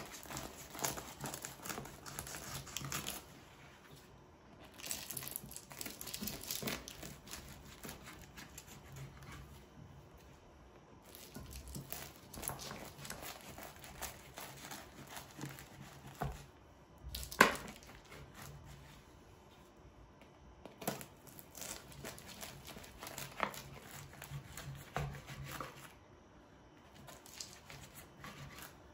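Knife slicing through a crisp baked yufka börek, the flaky pastry layers crackling in several bouts as the blade is worked down through them, with one sharp tap a little past halfway.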